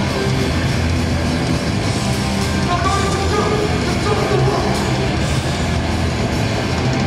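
Hardcore punk band playing live: loud distorted electric guitars over a steady, dense wall of band sound with no pause.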